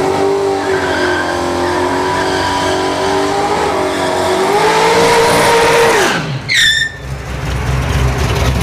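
Fox-body Ford Mustang drag car doing a burnout. The engine revs up and is held high for about six seconds while the rear tires spin, then drops back. A brief high squeal falling in pitch follows.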